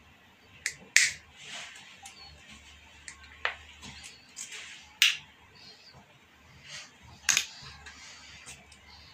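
Combination pliers snapping and clicking on a thin wire: a handful of sharp, irregularly spaced snaps, the loudest about a second in, midway and near the end, with soft rustling of the wire and hands between them.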